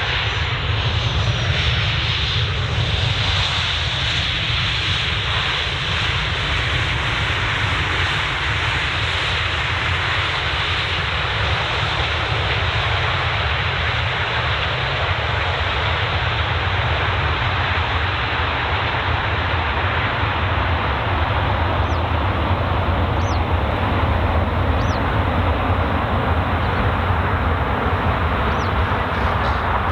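Jet noise from a landing Boeing 737-800's CFM56-7B turbofans: a steady rushing sound, with a high whine falling away in the first few seconds.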